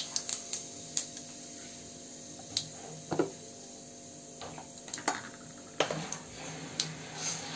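Cumin seeds crackling in hot oil in a kadhai: about a dozen scattered sharp pops, the loudest about three seconds in, over a faint steady hum.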